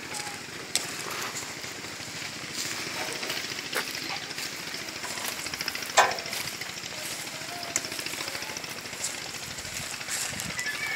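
Outdoor ambience: a steady sizzling, crackling hiss with a few sharp clicks, the loudest about six seconds in.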